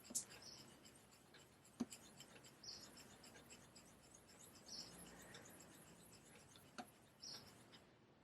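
Straight razor being honed on a Japanese natural finishing whetstone without slurry: faint scratchy swishes of the blade sliding over the stone, about one every two seconds, with a few light clicks as the razor is flipped on the stone.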